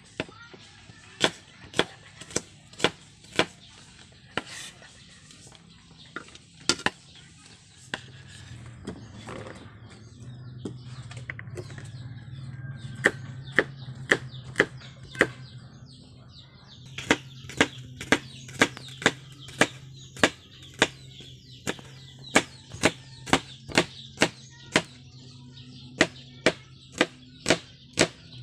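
Knife chopping shallots and garlic on a wooden cutting board: runs of sharp knocks, some about half a second apart and quicker later on. A steady low hum comes in about eight seconds in.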